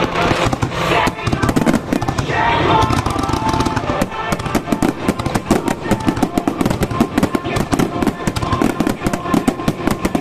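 Starmine fireworks barrage set to music: festival music plays while the shells burst. From about four seconds in, dense rapid bursts and crackle take over.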